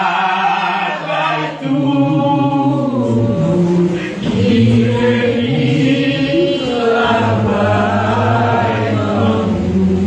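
Church congregation singing a hymn together, many voices on long held notes.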